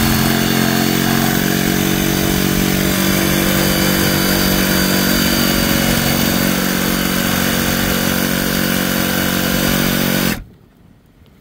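DeWalt jigsaw running steadily at speed as its blade cuts a round hole through an inch-thick balsa-cored fiberglass deck. It stops suddenly about ten seconds in, when the hole is cut.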